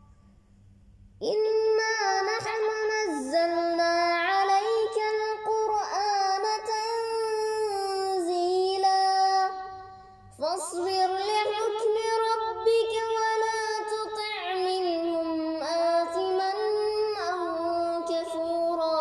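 Quran recitation chanted melodically in a high-pitched voice, with long drawn-out notes and ornamented turns. It begins about a second in, breaks briefly near the middle, then carries on in a second long phrase.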